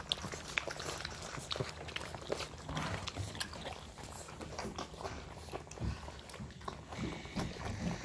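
Five-week-old American Molossus puppies eating moistened kibble from a stainless steel bowl: irregular chewing and biting, a run of short clicks and crunches.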